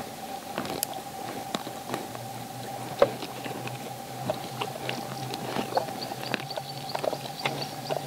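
Common warthog feeding with its snout in dry ground, making irregular crunching, tearing and chewing clicks, with one louder crack about three seconds in.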